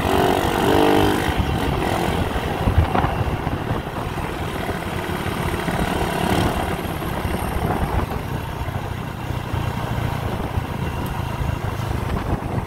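Motorcycle engine running steadily while riding along a road, with wind and road noise heard from the rider's seat.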